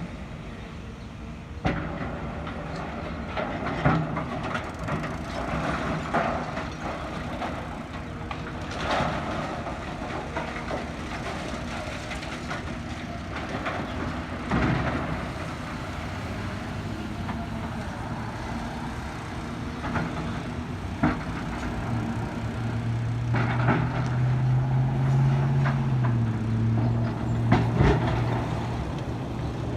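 Excavator's diesel engine running steadily, revving up for a few seconds about two-thirds of the way through, with scattered clanks and crashes as the bucket scoops and drops debris.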